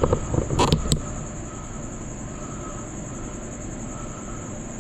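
Ceiling fan turning steadily, a low whir with a faint tone that comes back about once a second, after a few handling knocks and rustles in the first second. The fan is turning with its wall switch off.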